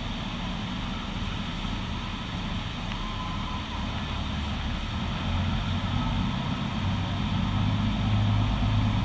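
Tour boat's engine running with a steady low hum that grows louder about halfway through, under a steady rush of churning water and wind near the falls.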